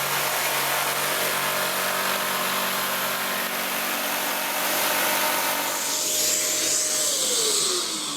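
A power tool plugged into a Kärcher WD wet-and-dry vacuum's tool socket runs together with the vacuum, which has switched on automatically to extract the dust. About 7 s in, the tool is switched off and its motor winds down in a falling whine, while the vacuum keeps running on to clear the hose.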